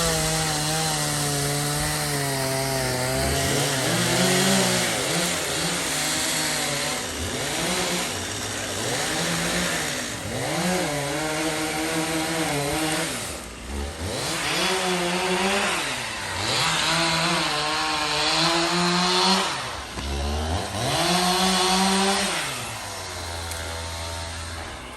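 Two-stroke chainsaw running hard while cutting wood, its engine pitch repeatedly rising and dropping every few seconds.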